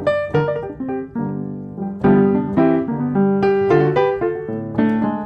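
Background piano music: a gentle melody of struck notes over soft chords.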